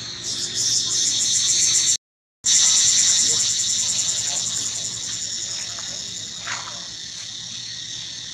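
Insects trilling in a steady, high-pitched pulsing chorus, cutting out briefly about two seconds in. A short falling squeak is heard about six and a half seconds in.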